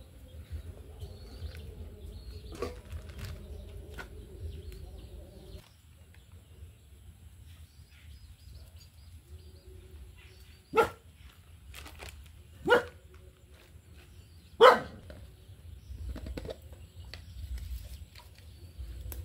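A dog barks three times, about two seconds apart, a little past the middle.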